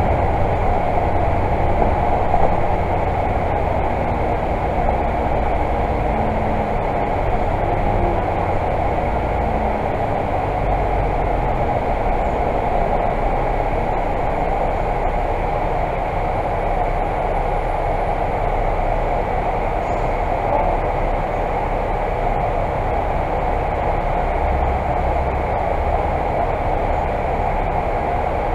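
Interior running noise of a Volvo Super Olympian double-decker bus heard from its upper deck: steady engine and road noise, with tyres on a wet road. The engine's low hum is strongest in the first ten seconds, then eases as the bus slows into traffic.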